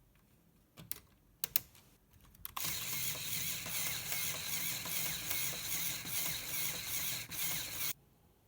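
A LEGO Technic truck model's plastic gear mechanism running with a steady, faintly rhythmic whirr for about five seconds, starting and cutting off suddenly, after a few sharp clicks.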